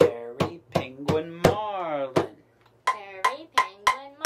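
A djembe struck in a short rhythm, four quick strokes then two slower ones, with a man's voice chanting 'fairy penguin, marlin' in time. Then the same rhythm is echoed by a wooden spoon striking a frying pan, with a child's voice chanting along.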